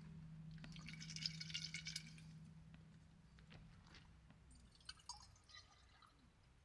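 Near silence: a faint low hum, with soft crackling and small clicks from food and tableware being handled, about a second in and again around five seconds.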